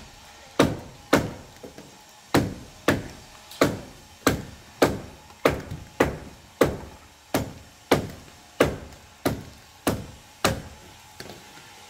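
A hand tool striking wood in a steady rhythm, about one and a half sharp blows a second.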